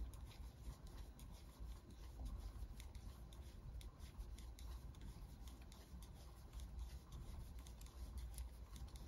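Faint, irregular clicking of 4.5 mm knitting needles, with the soft rub of yarn, as stitches are purled along a row.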